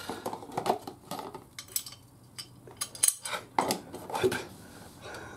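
Light metallic clinks and taps of hand tools and small metal parts being handled: scattered short, sharp clicks, some with a brief ring.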